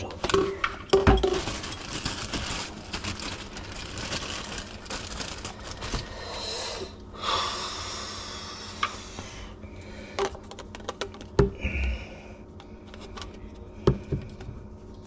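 White plastic PVC drain fittings and tools being handled under a sink: scattered knocks and clicks, with stretches of scraping in the first half.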